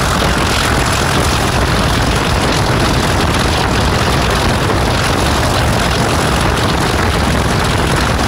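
English Electric V12 diesel engine of Class 37 locomotive 37425, running loud and steady under power with a deep rumble.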